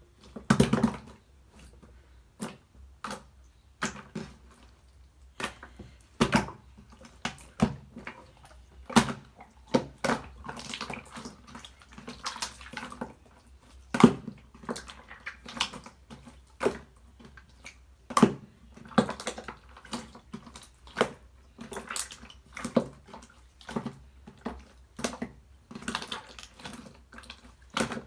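Clear slime being squished and pressed by hand, making irregular wet clicks and squelches, now single, now in quick clusters.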